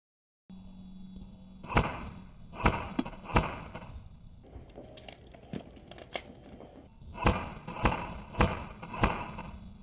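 Sharp knocks or thuds, one at a time about every half second to second, in three short stretches that are cut together, each with its own background hiss.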